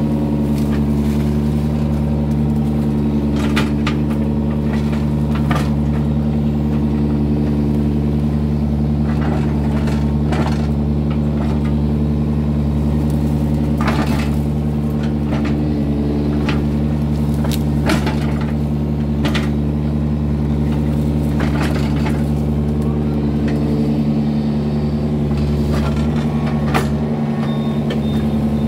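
Diesel engine of a Yanmar mini excavator running steadily under working load while it digs out a ditch. Irregular sharp knocks and clanks from the bucket and arm come every second or few. A thin high beep starts repeating near the end.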